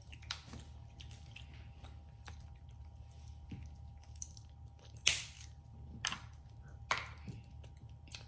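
Snow crab leg shells being cracked and snapped open by hand: a few sharp cracks about a second apart in the second half, the first the loudest, over quiet wet chewing and squishing while eating.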